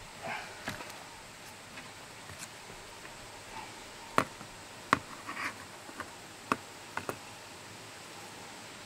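A handful of sharp, brief clicks of steel surgical instruments, mostly in the second half, as a wound is being sutured, with soft rustling in between.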